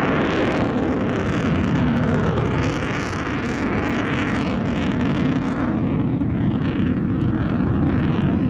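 Panavia Tornado's twin RB199 turbofan engines in flight: a loud, steady jet rumble with a crackling edge.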